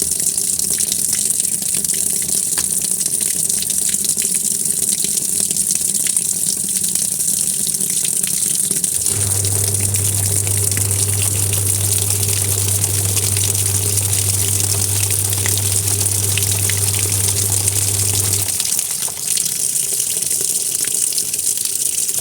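Washing machine with water rushing steadily into the drum. A low motor hum starts about nine seconds in and stops near the end.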